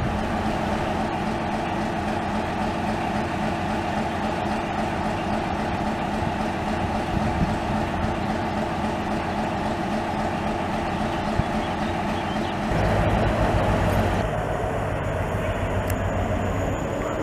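Class 60 diesel locomotive's Mirrlees eight-cylinder engine running steadily as it moves slowly by, running light without wagons. About 13 seconds in the sound changes to a louder, deeper engine rumble.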